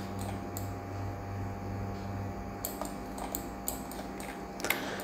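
Scattered light clicks of a computer mouse, about ten spread unevenly, over a steady low electrical hum.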